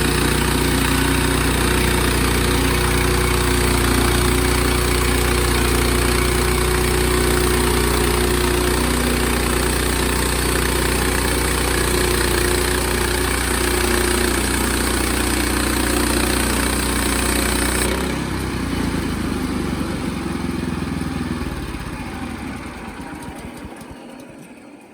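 Sawmill engine running steadily at speed, then dropping off suddenly about 18 seconds in and winding down as it is shut off near the end.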